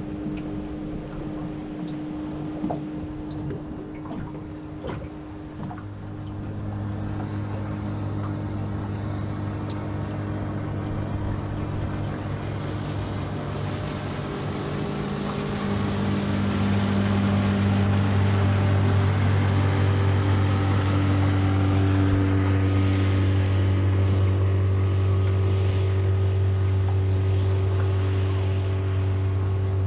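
Engine of a passing motorboat on the river, a steady drone that grows louder about six seconds in and again about sixteen seconds in, then holds.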